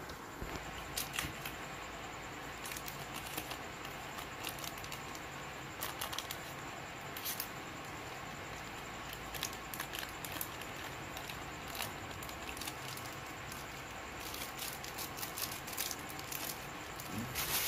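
Clear plastic packaging crinkling and rustling as hands handle bagged die-cut stencils and clear stamp sheets, in scattered small crackles and clicks.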